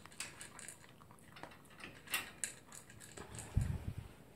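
Toy poodle eating from its food bowl: scattered sharp clicks and crunches of food against the bowl, with a low dull thump near the end.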